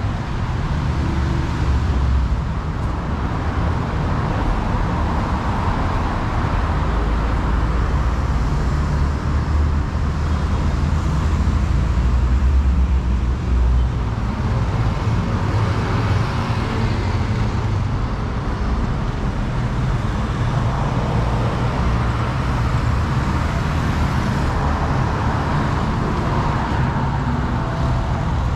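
Street traffic: a steady low rumble of vehicle engines, with the tyre hiss of passing cars swelling about halfway through and again later.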